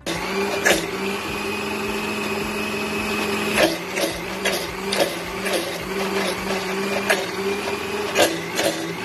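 Electric blender motor running steadily as it blends garlic paste with oil, lemon juice and mayonnaise into garlic sauce. It cuts in suddenly; about three and a half seconds in, its steady whine gives way to a slightly lower, uneven note with irregular knocks.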